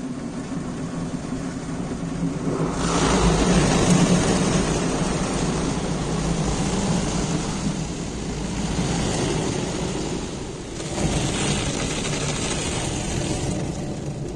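Automatic car wash heard from inside the car: water spraying and drumming on the windshield over a steady machinery hum. It gets much louder about three seconds in and surges again about eleven seconds in.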